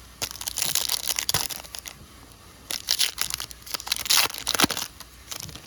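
Crinkling and crumpling of a foil trading-card pack wrapper being handled. It comes in two spells of rustle of about two seconds each, with a short crackle near the end.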